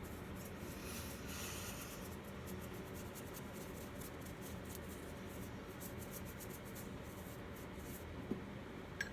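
Faint, quick rubbing strokes of an applicator spreading a thin coat of matte primer over a vinyl doll part, with two small ticks near the end.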